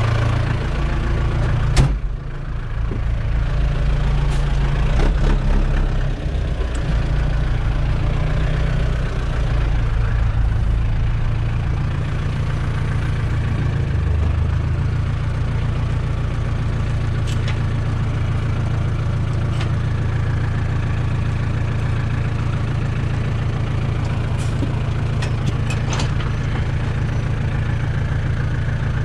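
Fendt 308 LSA tractor's diesel engine idling steadily, heard from inside the cab. A sharp bang about two seconds in as the cab door is shut, and a few light clicks later on.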